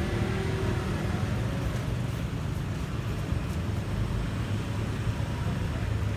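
Steady low engine rumble, running unchanged.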